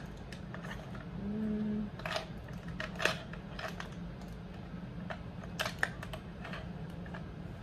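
Lipstick tubes and makeup brushes clicking and clacking against each other and the sides of a clear faceted cosmetics holder as fingers rummage through it: scattered light clicks and rattles.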